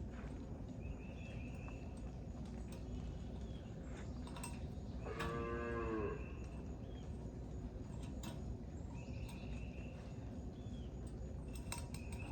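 A cow moos once, a single call about a second long around five seconds in.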